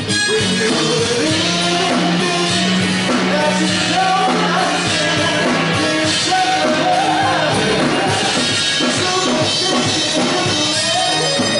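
Live band playing Motown-style soul music, with a male lead vocalist singing over it.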